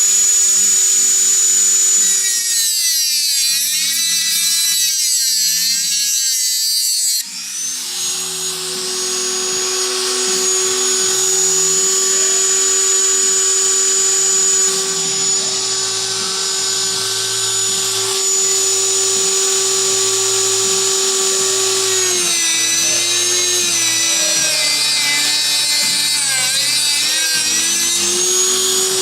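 Woodworking power tool motor running at a steady high whine, its pitch sagging twice under load, about two seconds in for several seconds and again near the end, then recovering.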